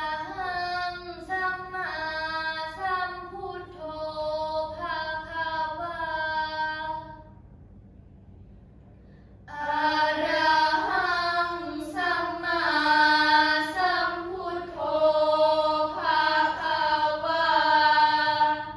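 A group of girls chanting a Buddhist prayer in unison, in a melodic sung style. There are two long phrases with a pause of about two seconds between them.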